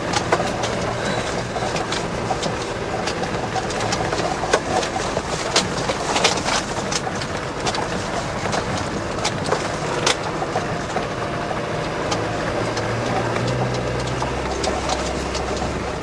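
Land Rover Defender 90's 300Tdi diesel engine heard from inside the cab while driving on a rough dirt track, with frequent knocks and clatters from the bodywork over the bumps. The engine note shifts lower near the end.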